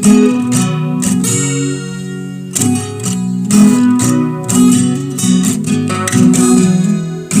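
Acoustic guitar strumming chords in a steady rhythm, the instrumental intro of a song before the singing comes in.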